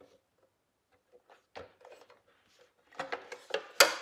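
Thick plastic skid plate knocking and scraping against the motorcycle's frame and mounting brackets as it is lifted into place. Scattered light knocks begin about a second and a half in and grow busier near the end, with one sharp knock just before it ends.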